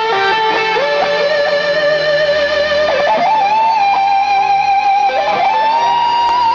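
Amplified electric guitar playing a live lead solo through ENGL amplifiers. It holds long sustained notes, slides up to a higher held note about three seconds in, and adds vibrato to the last note.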